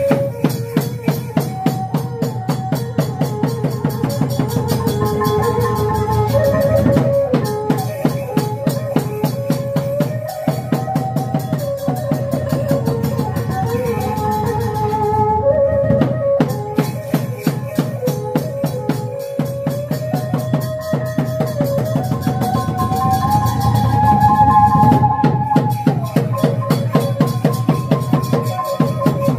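Khmer Chhay-yam ensemble music: fast, steady drumming under a wavering melody from a wind instrument.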